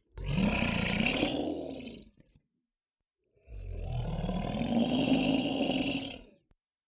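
Two monster roars, deep and raspy, from a horror creature sound-effects pack. The first lasts about two seconds and the second about three, with a dead-silent gap between them. The pitch of each rises and then falls.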